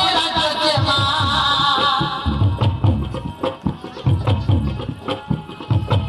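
Bastar folk dance music: a high melody line over a steady beat of low drums for about two seconds, then the drums carry on alone with sharp strokes.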